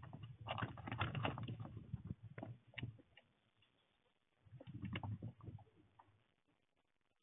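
A small rodent scrabbling and rustling right beside the microphone: quick runs of scratchy clicks with soft low bumps. They come in two spells, the first about three seconds long and the second starting about four and a half seconds in.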